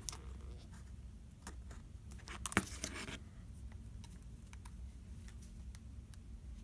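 Small clicks and rustling from hands working on an iPhone 5 with a suction cup, with a sharper click about two and a half seconds in and faint ticks after it.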